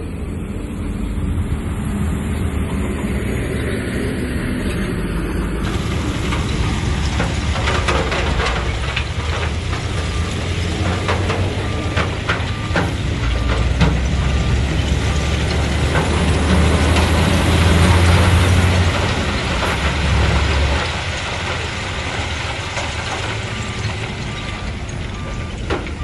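Komatsu bulldozer's diesel engine working under load while pushing stone, a steady low drone that swells about two-thirds of the way through and then eases. Scattered knocks sound in the first half. A faint regular beeping comes about twice a second in two short stretches.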